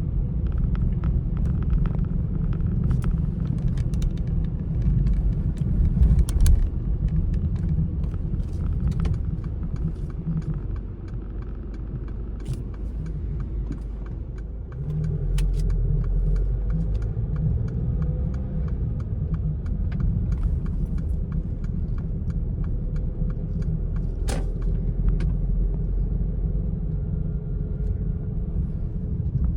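A car on the move: steady low road and engine rumble with scattered small clicks and rattles. The rumble eases for a few seconds around the middle, then comes back up.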